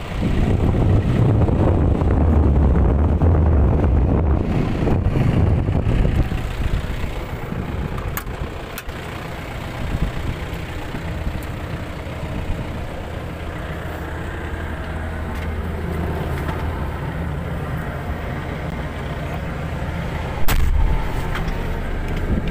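Manitou telehandler's diesel engine idling, louder and rougher for the first six seconds or so, then a steadier, quieter hum. A few sharp knocks and clicks cut across it, the loudest about twenty seconds in.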